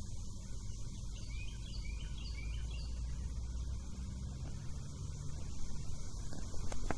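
Outdoor ambience: a steady low rumble on the microphone, with a small bird chirping a short run of quick rising notes from about one to three seconds in, and a single sharp click near the end.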